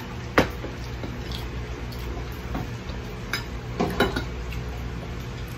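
Metal spoon and fork clinking and scraping against a glass plate while eating, a few sharp clicks, the loudest about half a second in and a small cluster near the end, over a steady low hum.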